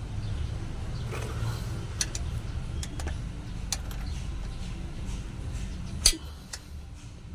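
Metal clinks and knocks of hand tools at work on a Suzuki Super Carry's starter motor while it is being unbolted: a few scattered taps, with a sharper knock about six seconds in, over a steady low rumble.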